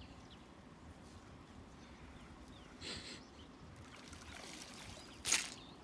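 Low water noise with two brief splashes: a softer one about three seconds in and a short, sharp, louder one near the end.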